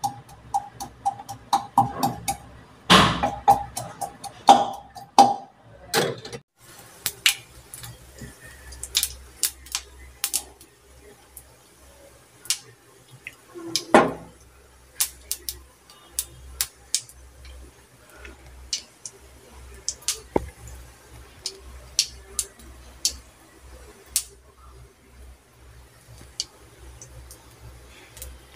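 Cumin seeds spluttering in hot oil in an iron pan on a gas stove: scattered sharp pops and crackles, several a second, with one louder knock about halfway through. For the first few seconds a voice or tune is heard before the crackling starts.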